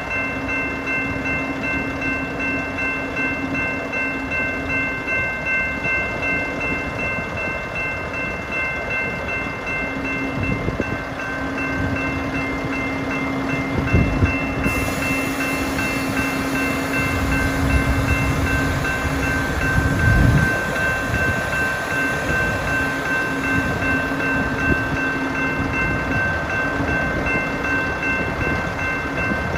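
Railroad grade-crossing bell ringing steadily with the crossing gates down, over the diesel engine of a Brandt road-rail truck running on the track. A low engine rumble swells about 14 seconds in and again from about 17 to 20 seconds.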